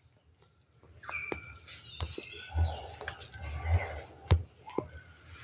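Outdoor ambience with a few short bird chirps and scattered light knocks and rustles, including one sharp click near the end.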